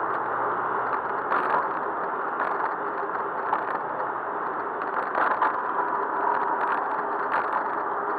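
Riding noise from a bicycle in traffic: a steady rush of wind and road with occasional short rattles and clatters.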